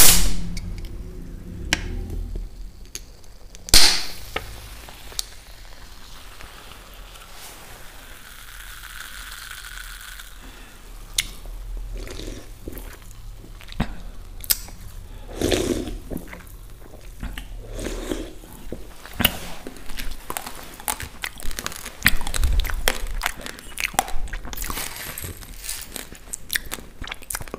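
An aluminium Coca-Cola can is handled right at the microphone, with sharp clicks at the start and about four seconds in as the tab is worked open, then a fizzing hiss of the carbonated drink. Later a dense run of small clicks and crackles follows as a metal spoon works through raw basmati rice.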